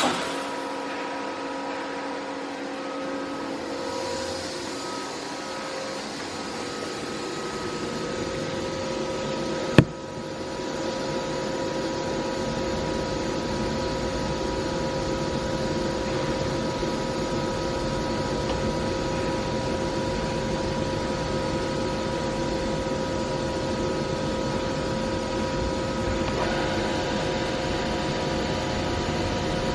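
FANUC Robodrill drill-tap machining center running under power: a steady mechanical hum with several steady tones. A single sharp click comes about ten seconds in, after which the running noise is a little louder, and more tones join near the end.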